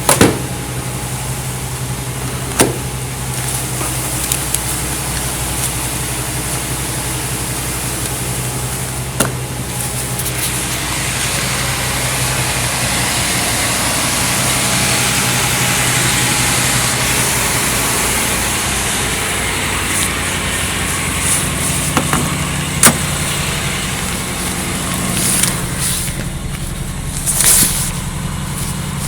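1989 Chevrolet Caprice engine idling steadily, with a few sharp clicks now and then.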